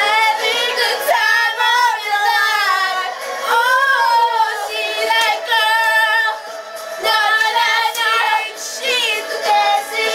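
A song with a female singing voice, thin-sounding with almost no bass.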